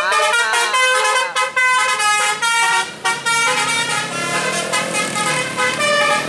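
A bus's basuri-style telolet horn playing a quick tune of shifting tones. In the second half an engine note rises underneath.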